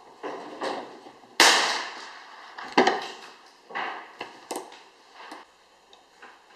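A string of sharp, echoing gunshot reports at irregular intervals, the loudest about a second and a half in and another sharp one near three seconds, with several fainter ones around them.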